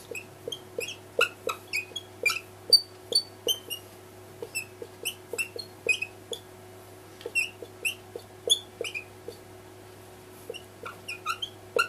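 Marker pen squeaking and ticking on the writing surface in quick, irregular strokes as numbers and symbols are written, with short pauses between, over a faint steady hum.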